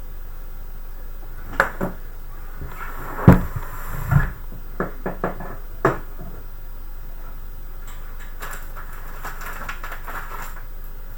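A string of irregular knocks and clicks from hardware being handled against a computer case, the loudest a sharp knock about three seconds in, followed by a few seconds of softer rustling and scraping over a steady low hum.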